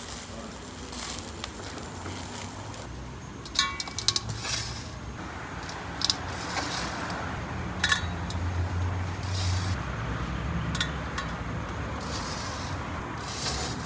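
Metal kebab skewers clinking against one another and against an enamel bowl as they are handled and laid in it: a scattering of sharp clinks, the loudest cluster about four seconds in with a brief metallic ring.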